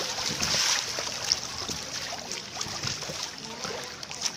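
Pool water splashing and sloshing as inflatable water-walking balls are rolled and crawled across a shallow pool: a hiss of disturbed water, loudest in the first second, with scattered small splashes and knocks.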